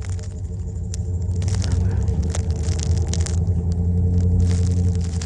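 A vehicle driving slowly on a snow-covered road: a steady low engine hum with the tyres crackling and crunching over the snow.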